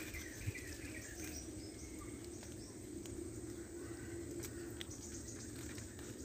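Faint forest ambience: a steady insect drone with a few short bird chirps in about the first second and a half.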